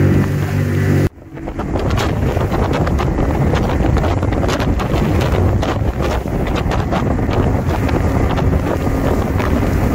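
Open aluminium runabout under way at speed with its Tohatsu MFS60 three-cylinder outboard: wind buffets the microphone over the motor and the water rushing and slapping at the hull, with many irregular knocks. A steady drone from the previous shot cuts off abruptly about a second in.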